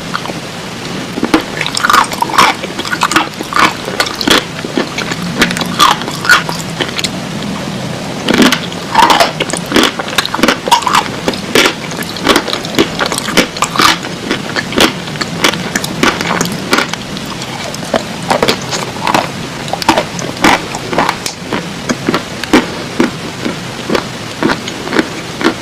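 Khawa clay (edible clay) being bitten and chewed close to the microphone: many irregular crisp crunches and clicks, a few a second, with some wetter, squishier ones.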